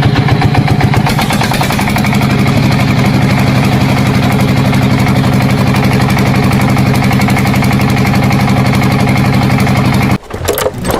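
Engine running steadily with a rapid pulsing beat, settling to a slightly different pitch about two seconds in, then cutting off suddenly near the end.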